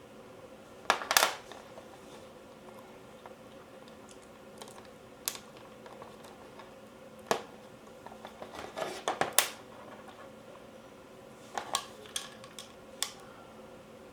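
Scattered clicks and light knocks of airsoft AK parts being handled and worked on, in short clusters with gaps between: a double knock about a second in, a busy run of clicks around the middle, and a few more near the end.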